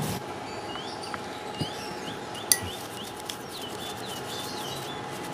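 A small bird chirping over and over, short rising-and-falling chirps about three a second, with one sharp click about two and a half seconds in.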